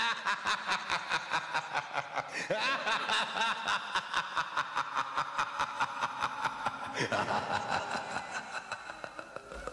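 A spooky sound-effect cackle: a long, rapid laugh of about six pulses a second that fades over the last few seconds.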